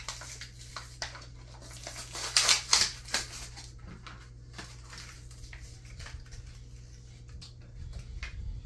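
A small pet-treat package being opened and handled by hand: rustling and crackling of the packaging, loudest in a burst about two to three seconds in, then lighter handling.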